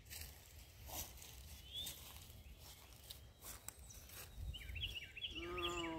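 Songbirds chirping and calling, with a quick run of falling chirps and then a louder call near the end, over a few footsteps in grass.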